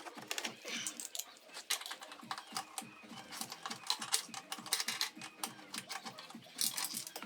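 Irregular rapid clicking and light metallic tapping of hand tools working the motorcycle's exhaust bolts.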